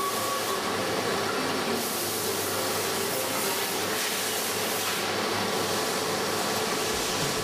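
Mobile laser welding machine running during mold repair welding: a steady hiss with a faint hum.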